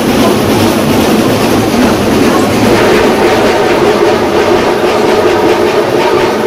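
Loud street drum ensemble playing a fast, dense rhythm of Afro-Colombian and Brazilian-style percussion.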